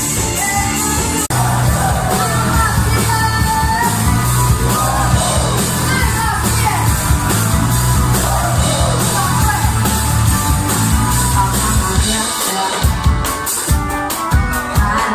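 Band playing rock-style dance music with a singer. A brief dropout comes about a second in, and near the end the bass falls away, leaving separate drum hits.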